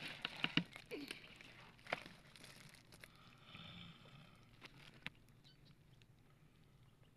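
Cloth and a woven plastic sack rustling against the microphone as they are pulled aside from a bucket, with several sharp clicks and knocks in the first two seconds. After that only faint background noise with an odd tick.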